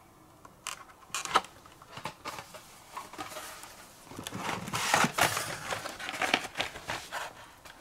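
Carded Hot Wheels packages, cardboard backs with plastic blisters, being handled and shuffled. There is crinkling and rustling with scattered clicks, busiest about five seconds in.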